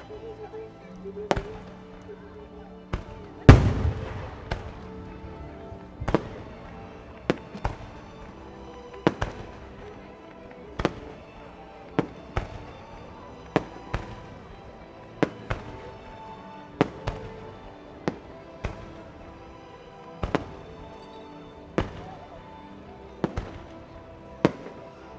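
Aerial fireworks shells bursting in a steady series, a sharp bang roughly once a second, with one much louder, deep boom about three and a half seconds in. Music plays underneath the bangs.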